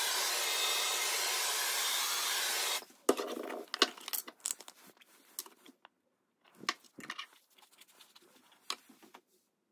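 Handheld gas torch flame hissing steadily as it heats a steel gun barrel, shut off abruptly about three seconds in. Then scattered clicks, knocks and rustling as the torch is put down and a plastic tub with a sponge is handled.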